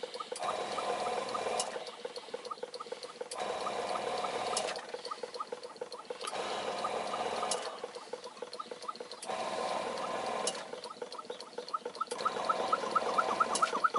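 Model oscillating engine of Muncaster design running, its cylinder giving a rapid, even puffing exhaust over a hiss. The hiss swells and eases about every three seconds, with a sharp click at each swell.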